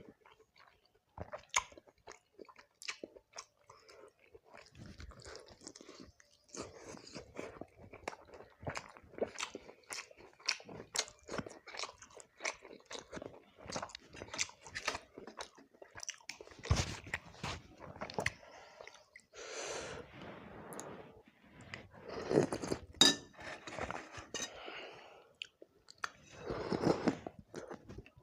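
Close-miked chewing of rice and fried fish: crunchy bites and wet chewing, growing louder and denser in the second half.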